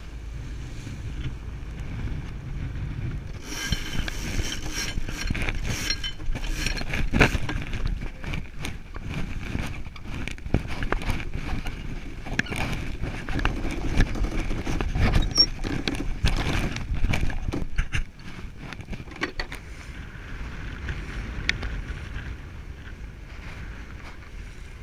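Sailboat under way in strong wind: wind buffeting the microphone and water rushing past the hull. From about three seconds in until about eighteen seconds in, rapid clicks and knocks from rope and winch handling in the cockpit, after which only the quieter wind and water remain.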